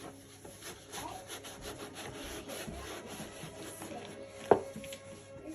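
Quick back-and-forth scrubbing strokes on a hard surface, with one sharp knock about four and a half seconds in.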